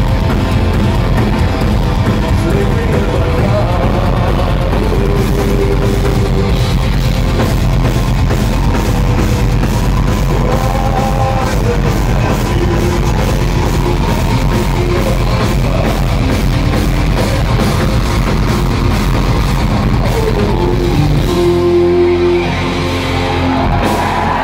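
A live rock band plays a loud song with distorted guitars, keyboards, a driving drum kit and singing. Near the end the drumming stops and a held chord rings on.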